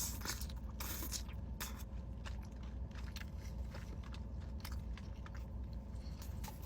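Biting into and chewing chicken wings close to the microphone: a string of short, irregular crunches and clicks over a steady low hum.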